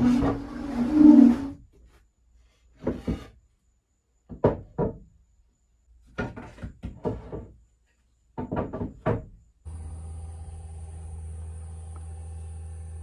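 A loud clatter, then several short flurries of knocks and clunks of engine-removal work in the boat's cabin. About ten seconds in, a steady droning engine hum of the boom crane begins.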